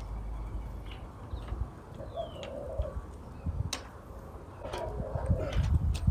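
Wind buffeting the microphone, with birds calling in the background: a low call about half a second long that repeats about every two and a half seconds, and short falling chirps. A few sharp metallic clicks, tools on the bike, come in the second half.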